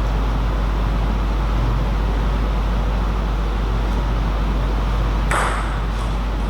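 Steady low hum and hiss of the hall, with one sharp click of a table tennis ball about five seconds in.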